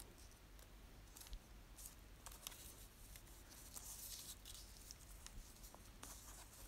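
Faint rustling of paper and transparent stickers being handled and pressed down by hand onto a journal page: scattered light ticks with a brief rubbing hiss about four seconds in.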